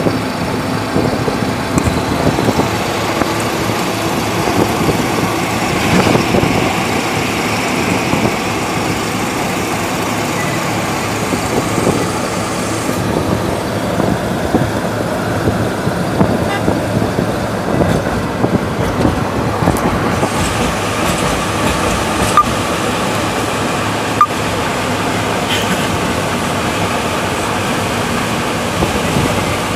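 Steady road noise of a moving vehicle heard from inside the cabin, with a few small knocks along the way.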